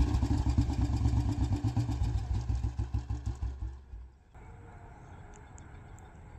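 Royal Enfield Bullet 350 single-cylinder engine thumping as its revs fall back, the beats coming slower and weaker, until the engine sound stops abruptly about four seconds in, leaving only faint background.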